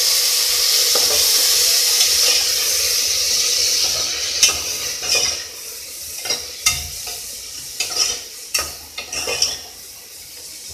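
Potatoes and onions sizzling in hot mustard oil in a pressure cooker. After about four seconds the sizzle dies down as the pointed gourd peels go in, and a spoon stirs and knocks against the cooker about ten times.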